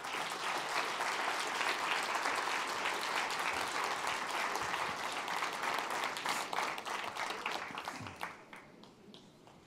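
Audience applauding: many hands clapping in a dense patter that dies away near the end.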